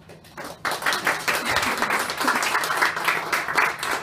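Audience applauding, starting about half a second in and dying away just after the end.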